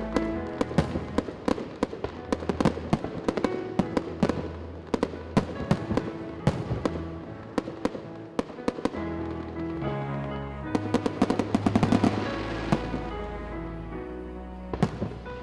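Aerial fireworks bursting in quick succession, with many sharp bangs and crackles and a dense flurry about three quarters of the way through. Music with held notes and a bass line plays under them.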